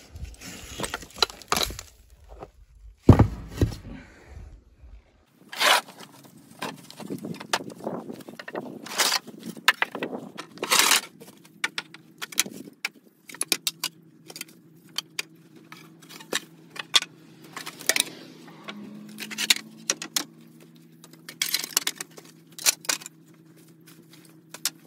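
Broken bricks and rubble being handled and tossed aside by hand: repeated knocks, clinks and scrapes of brick and debris, with a loud knock about three seconds in.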